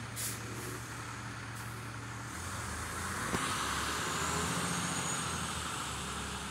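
Motor vehicle engine idling with a steady low hum that shifts lower about two seconds in, while a hiss of road noise swells and fades again in the middle.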